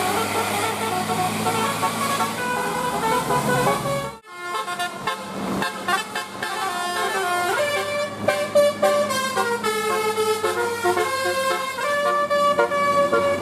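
Indonesian bus 'telolet' musical air horn playing a tune of stepped tones. It breaks off for a moment about four seconds in, then plays on.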